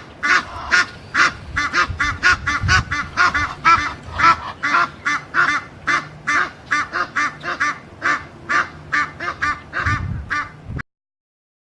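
Female Egyptian geese honking loudly and persistently, several harsh honks a second, the calls of more than one bird overlapping, to drive other geese off. The honking stops suddenly near the end.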